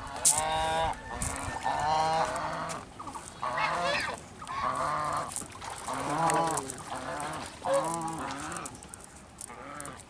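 An animal calling over and over: about eight loud calls, each under a second long, with short gaps between them.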